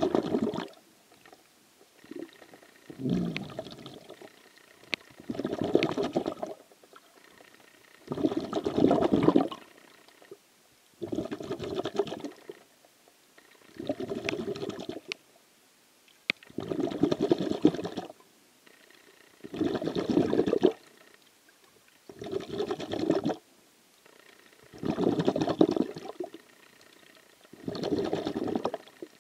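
Rhythmic breathing of the swimmer carrying the camera, heard underwater: a rush of bubbly noise, each about a second long, about every three seconds.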